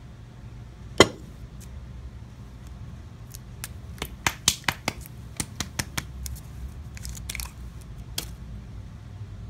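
Glass hot sauce bottles being handled on a tabletop: a sharp knock about a second in, then a quick run of clicks and taps in the middle as a bottle is shaken and moved, and a short scrape and another click near the end.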